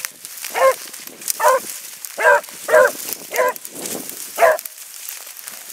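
A hound baying as it works through dry brush, giving six short, pitched bays at uneven intervals, with faint rustling between them.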